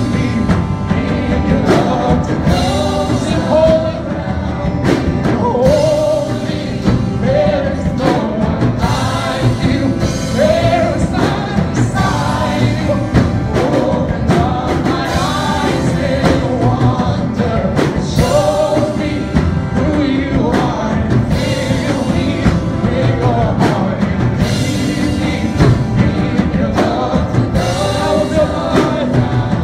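Live contemporary worship band: several singers carrying the melody over acoustic guitar, band and steady drum beats.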